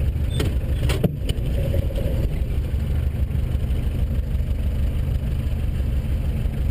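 Minibus taxi's engine running with a steady low rumble, heard from inside the cabin, with a few sharp knocks or rattles about a second in.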